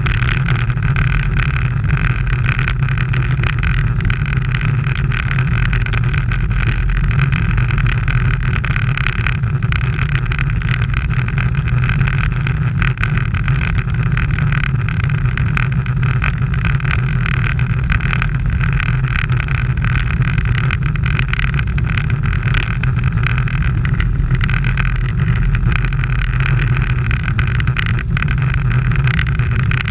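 Steady rush of wind and road noise over a bicycle-mounted action camera riding at speed.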